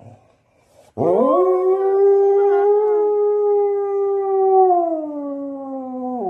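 A husky howling: after a second's pause, one long howl that swoops up, holds a steady pitch, then slides slowly down near the end.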